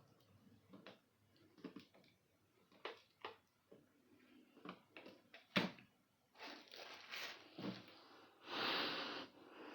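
Handling noises: scattered light clicks and knocks, one sharper click a little past halfway, and a brief rustle near the end.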